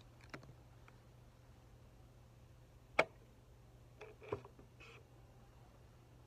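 A wide plastic boba straw punched through the sealed plastic film on a bubble tea cup: one sharp pop about three seconds in, then a few softer clicks and rustles as the straw is pushed down into the cup.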